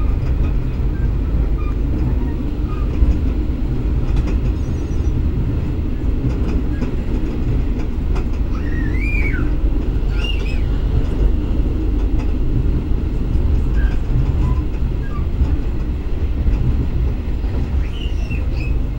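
Argo Wilis passenger train running at speed, heard from inside the coach: a steady, loud rumble of wheels on the track. A few faint short high squeaks come through around the middle and again near the end.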